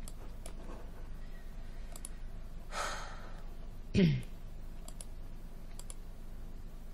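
A woman breathes out audibly about three seconds in, then a second later gives a short, louder sigh that falls in pitch. A few faint clicks of a computer keyboard or mouse sound at intervals.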